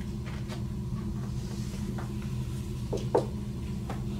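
A picture card is handled and changed in a wooden kamishibaï theater frame, giving a few light knocks and scrapes, the loudest about three seconds in. A steady low hum runs underneath.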